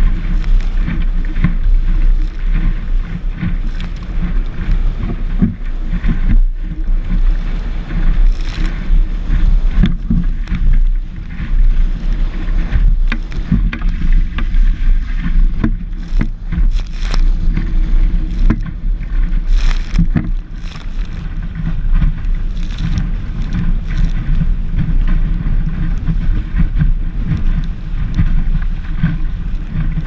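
Strong wind buffeting the microphone as a Sunfish sailboat's hull planes through choppy water, a continuous low rumble broken by irregular slaps and spray hitting the deck.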